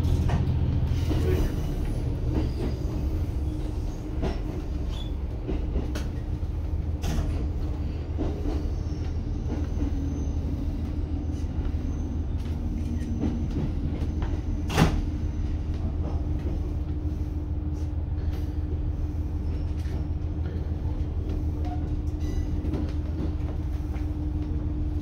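ET122-1000 diesel railcar running along the line, heard from inside the front of the car: a steady low drone with a steady hum above it. Scattered wheel clicks come over the track, with one sharper knock about 15 seconds in.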